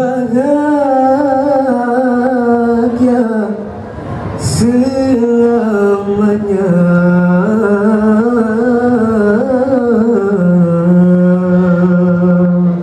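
A nasyid group of young men sings one melody line into microphones, in long phrases with bending, held notes. There is a short break for breath about four seconds in, then a second long phrase.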